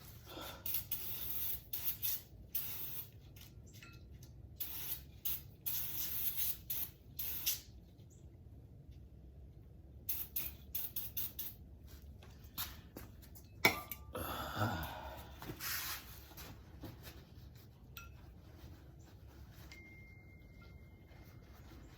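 An aerosol spray can hissing in many short bursts, a pause, then another run of bursts, with a single sharp click about two-thirds of the way through.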